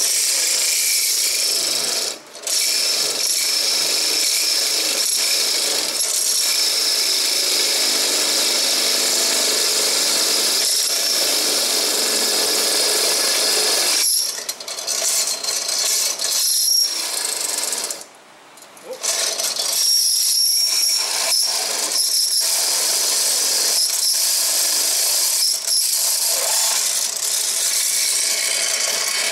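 Drill press running with its bit cutting through steel square tubing, a steady high-pitched grinding whine. It breaks off briefly a few times, the longest for about a second some 18 seconds in.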